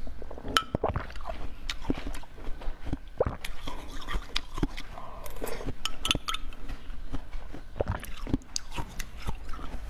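Close-miked eating: bites and chewing with many sharp, irregular crunches and clicks.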